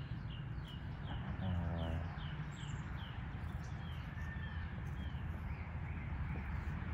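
A small bird calling: a quick run of short, high, falling chirps, about three a second, that slows and stops about five seconds in.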